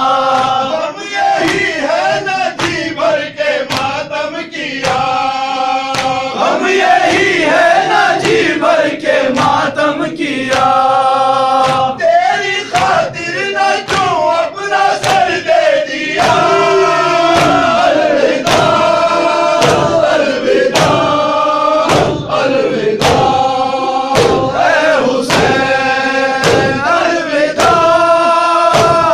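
A crowd of men chanting a noha (Urdu lament) in unison while beating their chests in time, about three strikes every two seconds: Shia matam.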